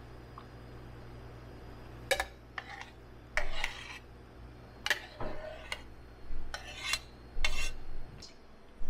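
Cups and utensils clinking and scraping as hazelnut lattes are finished behind a coffee counter, a handful of short knocks and rattles over a steady low hum that stops near the end.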